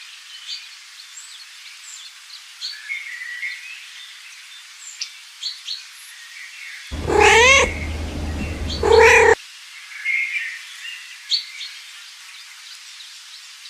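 A cat meows twice. The first meow, about seven seconds in, is drawn out and its pitch rises and then falls. The second comes about a second and a half later and is shorter. Faint high chirps run underneath.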